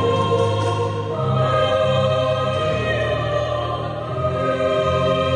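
Children's choir singing, holding long chords in several parts that move to a new chord about a second in.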